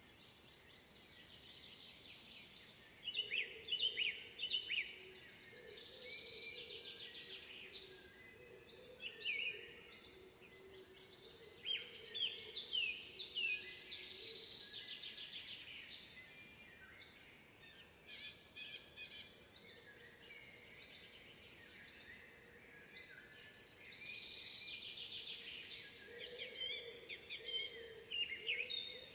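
Several songbirds singing in a spring woodland: overlapping high chirps, trills and warbled phrases, with louder bursts of song a few seconds in, about twelve seconds in and near the end.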